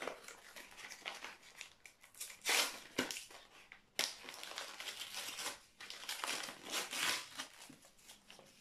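Packaging being handled, rustling and crinkling in irregular bursts, with a sharp click about three seconds in and another about four seconds in.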